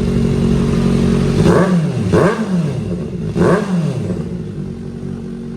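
Kawasaki ZX-4RR's inline-four engine breathing through an aftermarket Orion VMAX Racing muffler, idling and then blipped hard three times, each rev shooting up in pitch and dropping straight back, before settling to idle again.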